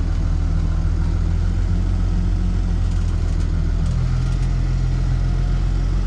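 Tractor engine running steadily with a low, even hum; its note shifts slightly about four seconds in.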